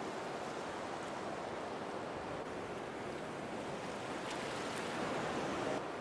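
Waterfall: a steady rush of falling water, growing a little louder near the end and then dropping back suddenly.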